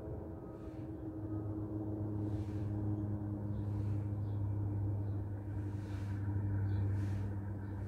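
A steady low mechanical hum that holds one even pitch throughout.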